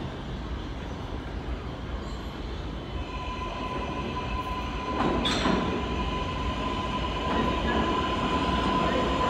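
A Kawasaki R142A subway train approaching the station: a low rumble that grows steadily louder as it comes in. About three seconds in, a steady high wheel squeal joins. A sharp clack or knock comes about five seconds in.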